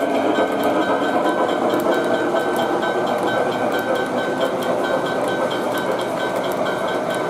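O gauge model train's streamlined passenger cars rolling steadily past on three-rail track, with a bell dinging about two to three times a second.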